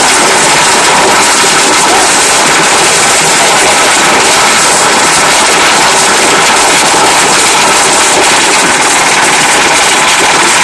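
Belt-driven sugarcane roller crusher running loud and steady with a fast rattling clatter, as cane stalks are fed through its steel rollers.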